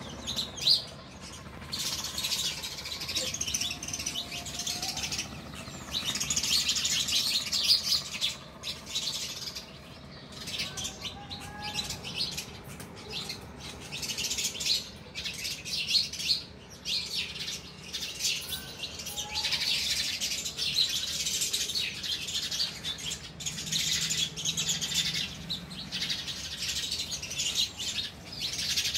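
A flock of house sparrows chirping continuously, many calls overlapping into a busy chatter that swells and eases.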